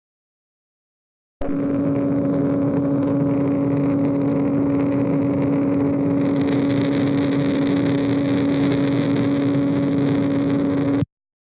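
Playback of a dynamic pressure signal recorded during a pump cavitation test: a steady two-tone hum under a hiss that starts and stops abruptly. About halfway through, a fast crackling of popping noise joins in, caused by cavitation bubbles collapsing.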